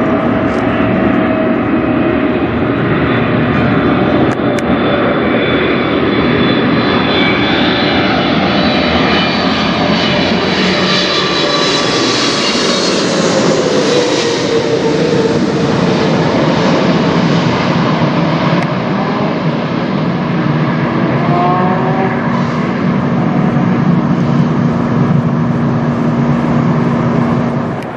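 Boeing 777 twin-engine jet airliner passing low overhead. Its engine roar and whine build up, peak about halfway through, then ease off, with the whine dropping in pitch as it goes past.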